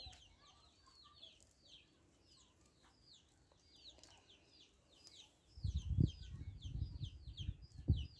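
Chicks peeping: a steady run of high, short, falling chirps, about three or four a second. In the last few seconds a louder low rumble with two thumps comes in, the loudest sound here.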